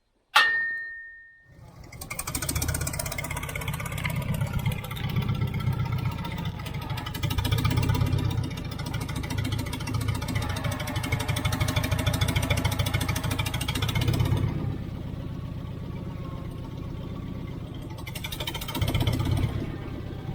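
A single ringing metal clang, then an engine comes in about a second and a half later and runs steadily, its level swelling and easing several times.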